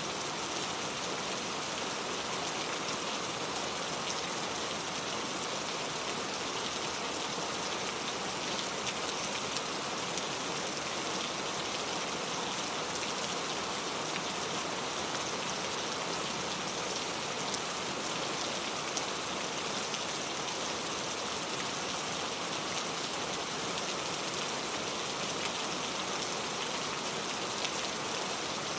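Steady, even rainfall: a dense hiss of raindrops hitting a surface, with scattered individual drop ticks.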